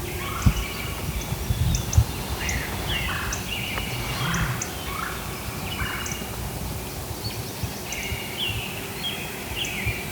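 Wild turkeys calling, a run of swooping calls in the middle, with songbirds chirping high above them. A few low thumps in the first two seconds.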